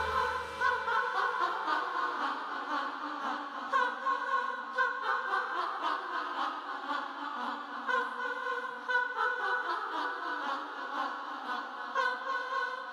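Women's voices singing a cappella in short, broken phrases, with the low accompaniment dropping out about a second in.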